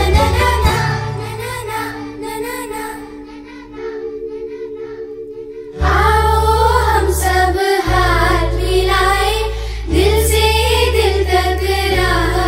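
A group of girls singing a song together over instrumental accompaniment. The music softens to quieter held chords for a few seconds, then the full backing with its low bass returns about six seconds in and the singing grows louder.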